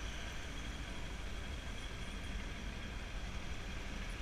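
Motorcycle running steadily at low speed, heard from the rider's seat as an even low rumble.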